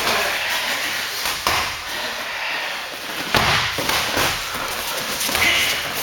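Kickboxing sparring: a few scattered thuds and slaps of gloved punches, shin-guarded kicks and footwork on the mat, over a steady background noise.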